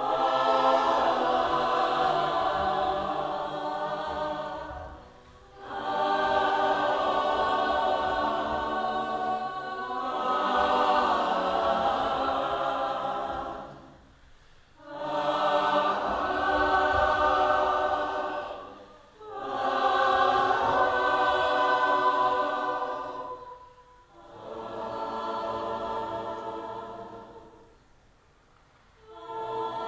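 A choir singing held chords in phrases of about four seconds, each swelling and then fading, with short silent breaks between them, six phrases in all.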